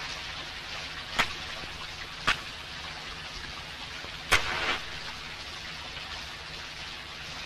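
A match struck three times against the side of a matchbox, three short sharp scrapes about a second apart. The third is the loudest and trails a brief flare as the match catches. All of it sits over a steady hiss.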